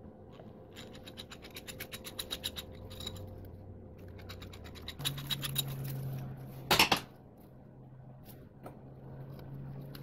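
Hand-tool work during motorcycle disassembly: a fast run of even clicks for a couple of seconds, then more clicking and scraping. A low steady hum comes in about halfway through, and there is one loud knock near the end.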